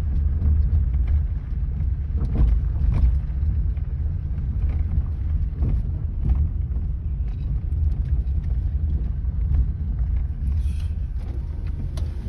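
Car road noise heard inside the cabin while driving on a gravel dirt track: a steady low rumble with scattered knocks from the bumps.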